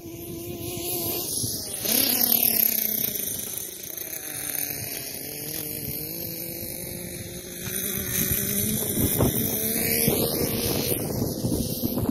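Kyosho USA-1 nitro monster truck's O.S. 30VG engine running hard as the truck drives around, its pitch rising and falling with the throttle and its passes. It gets loud as the truck comes near about two seconds in, drops off, then grows loud again near the end.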